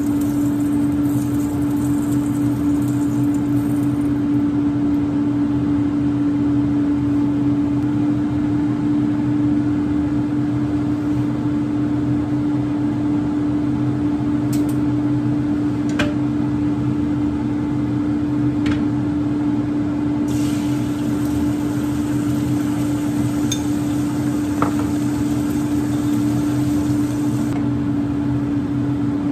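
Kitchen range hood fan running with a steady, loud hum. A few sharp clinks of chopsticks and utensils on dishes come in from about halfway through.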